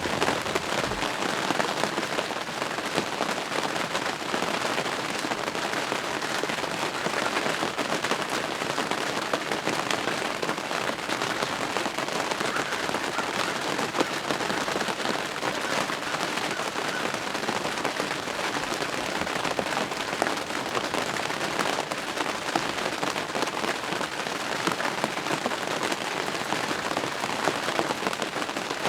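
Steady rain, a dense patter of many close drops striking a surface.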